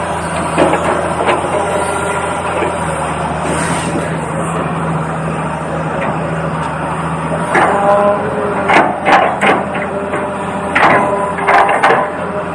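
Small electric motors of a toy RC excavator running with a steady hum and whine. Sharp plastic clacks and knocks come twice near the start and in a cluster through the second half.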